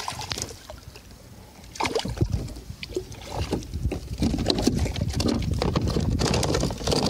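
A hooked speckled trout being brought aboard a plastic kayak and thrashing against the hull, making irregular knocks and rattles from about two seconds in.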